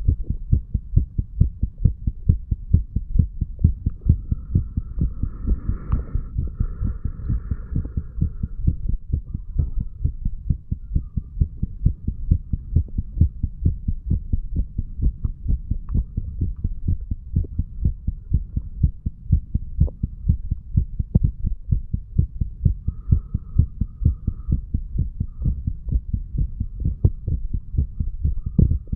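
A man's heartbeat recorded at the chest, a steady, regular run of low-pitched beats.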